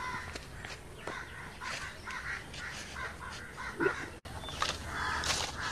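Crows cawing and other birds calling, short repeated calls. A few short knocks come as bricks are set on the ground, the loudest about four seconds in.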